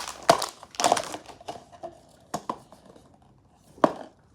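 Packaging rustling and crinkling as an opened blind box is unpacked by hand, then a few sharp clicks and taps as pieces are handled.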